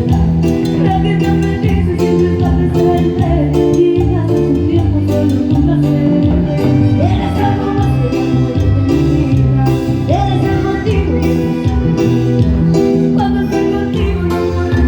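Live band playing Latin dance music with a steady beat: bass lines and percussion, with a singing voice coming in now and then.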